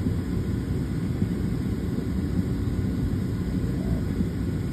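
Steady low rumble of jet airliner noise, heard from inside an airliner cabin.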